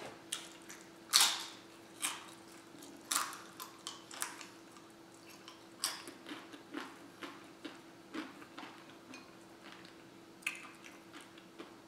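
Close-up chewing and crunching of tortilla chips, a run of sharp crunches at irregular intervals, loudest in the first few seconds, over a faint steady hum.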